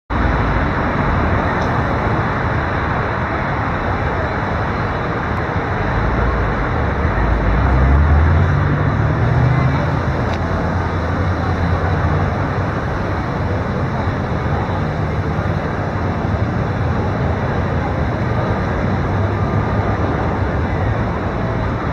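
Steady hum of road traffic. A motor vehicle's engine swells louder about seven to ten seconds in as it passes.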